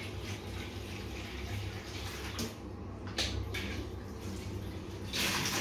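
Water running from a kitchen tap into a bowl being rinsed in the sink. The stream thins briefly about halfway through, and there is a louder rush of water near the end.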